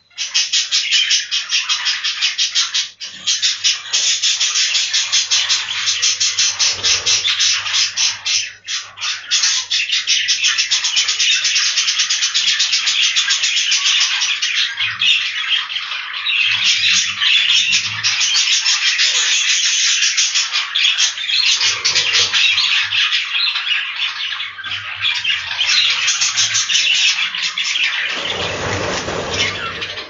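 A flock of budgerigars chattering and chirping continuously, many birds at once in a dense high-pitched warble. A broader rush of noise comes in near the end.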